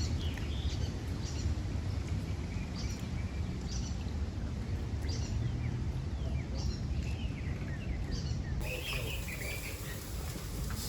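Birds chirping outdoors, short high calls repeating about once a second over a steady low rumble of outdoor noise; near the end a different set of lower chirps takes over.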